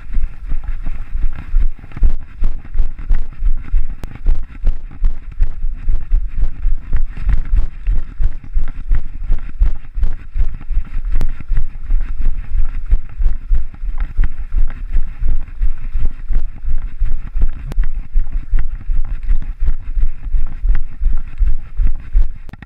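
Wind rumbling on a running person's body-worn camera microphone, pulsing with each stride at nearly three beats a second.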